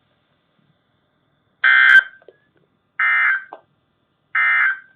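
Emergency Alert System end-of-message (EOM) data tones: three short, identical bursts of screechy digital SAME warble about a second apart, which mark the end of the alert.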